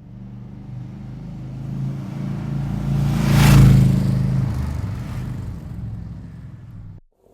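Motor vehicle driving past: the engine grows louder to a peak about three and a half seconds in, with a rush of noise as it passes, then fades away until the sound cuts off about seven seconds in.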